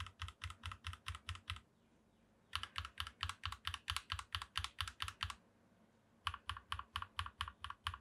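Akko CS Rose Red linear mechanical keyboard switches pressed in quick succession, about six clacks a second, in three runs with brief pauses between them. One switch is unlubed and one is lubed with Krytox 205 grade 0, to compare their sound.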